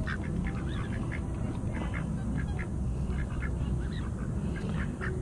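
White domestic ducks quacking in short, scattered calls over a steady low rumble.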